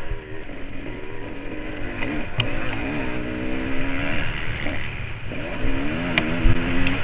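Kawasaki KX500 two-stroke single-cylinder motocross engine revving hard, its pitch climbing and dropping as the throttle is worked, twice building up and falling off, with two sharp knocks along the way.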